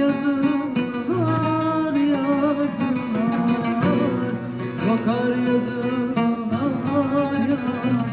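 A woman singing a Turkish folk song into a microphone, accompanied by a bağlama (long-necked saz) being strummed and plucked.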